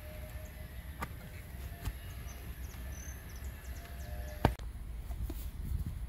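Outdoor ambience: a steady low rumble with faint high chirps, broken by a few sharp clicks, the loudest about four and a half seconds in.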